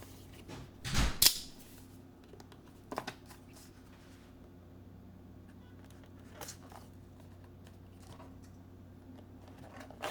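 Handling noises as a USB-C cable is picked up and handled on a desk: a knock with a rustle about a second in, then a few faint clicks, over a low steady hum.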